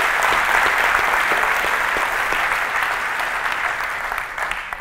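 Audience applauding: many hands clapping together, the applause dying away near the end.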